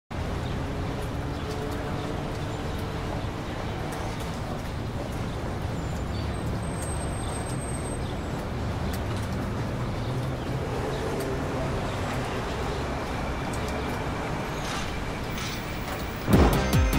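Steady city street ambience, a low traffic hum. Loud music starts suddenly near the end.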